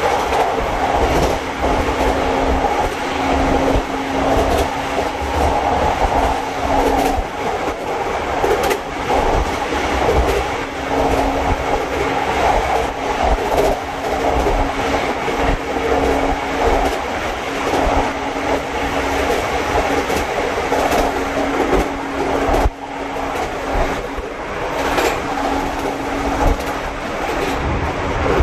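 Train running along the line, heard from inside the carriage: a continuous rumble of wheels on rail with a steady low hum that comes and goes, and frequent short clicks of the wheels over the track.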